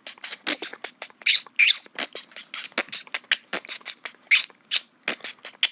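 A fast run of short percussive clicks and hissing hits, about five or six a second, in a beatbox-like rhythm.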